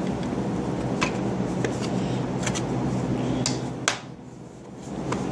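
Plastic clicks and light knocks, about six of them, as the cover of an Oster 157-08A smoke alarm is handled and pressed onto its base to engage the latches, over a steady low hum.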